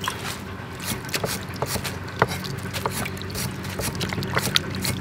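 Wet lettuce being handled in a metal colander: irregular light taps and drips, a few each second, over a steady low hum.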